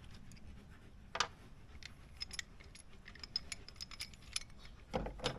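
Scattered light metallic clicks and ticks from a 5mm Allen wrench and the parts of an aluminum hood latch being handled while the latch is unscrewed apart. There is a sharper click about a second in and a small clatter near the end.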